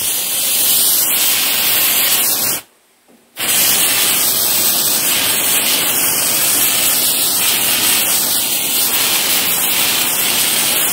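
Aerosol hornet-killer spray can hissing in a long continuous burst as it douses a hornet nest; it stops for under a second about two and a half seconds in, then sprays again in a second long burst.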